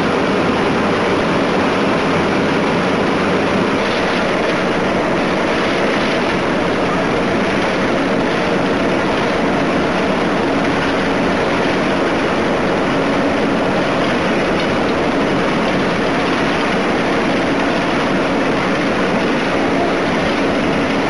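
Road-paving machinery laying tarmac, its engines running steadily in a dense, even noise without breaks.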